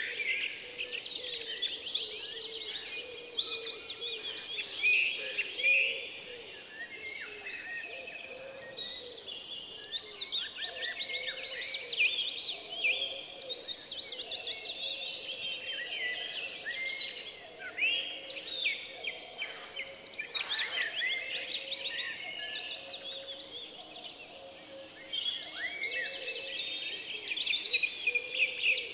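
Many small birds chirping and twittering at once, a dense chorus of quick repeated chirps, louder in the first six seconds and again near the end.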